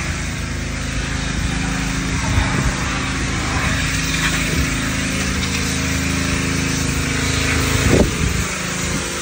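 A small engine running steadily, with a steady hiss over it, and a short bump about eight seconds in.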